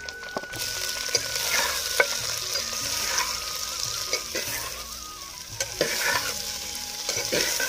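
Sliced onions sizzling in hot oil in a clay handi, starting about half a second in as they go in, while a metal spoon stirs them, scraping and clicking against the pot.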